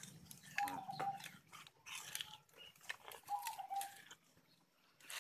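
Crunching and cracking of green sugarcane being chewed and its rind picked apart by hand. A bird gives a short, even call twice, the calls about two and a half seconds apart.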